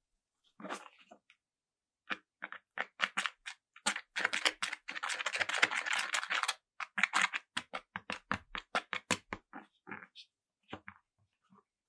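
Handling clicks and taps from parts and tools: a run of short, sharp knocks, densest and fastest from about four to six and a half seconds in, then thinning out toward the end.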